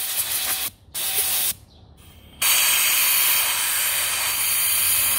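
Compressed-air blow gun blasting through the ports of a Bosch idle air control valve, a loud hiss in three blasts: two short ones in the first second and a half, then a long steady one from about two and a half seconds in. The air is blowing the cleaner out of the freshly cleaned valve.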